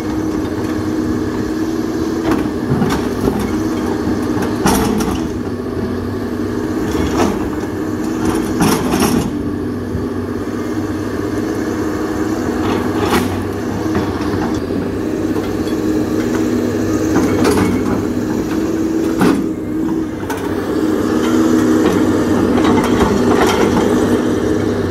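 CAT 320D hydraulic excavator's diesel engine running steadily under working load, with a sharp knock or clank every few seconds as the bucket works the dirt and debris. The engine grows a little louder near the end.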